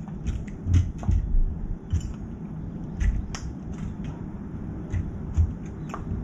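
Young crow pecking kibble from a steel bowl on a metal feeding tray: irregular sharp knocks and clicks of its bill striking the metal and the food, some with a dull thump.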